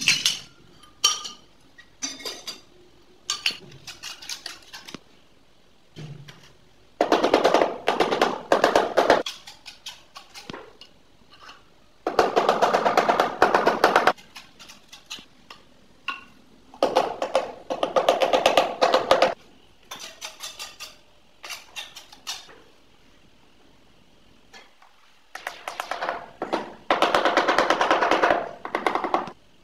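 Bursts of rapid tapping or rattling, each one to two seconds long, about six times, with scattered single knocks between them.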